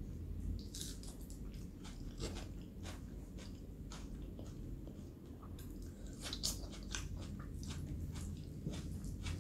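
Close-miked eating sounds: a person chewing a mouthful of rajma and rice, with irregular wet clicks and a few crunches, over a steady low hum.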